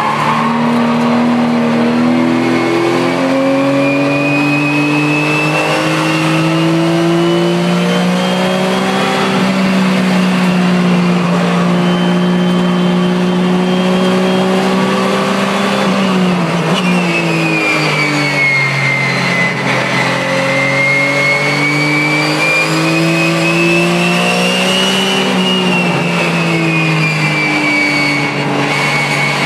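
Porsche 996 Cup car's flat-six engine at racing speed, heard from inside the cockpit: revs climb and hold high, fall sharply about halfway through as the car slows and shifts down, then climb again. A high whine rises and falls with the engine.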